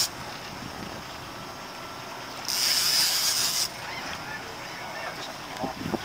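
Steady wind and water noise on a small boat on choppy water. About two and a half seconds in, a loud hiss lasts roughly a second.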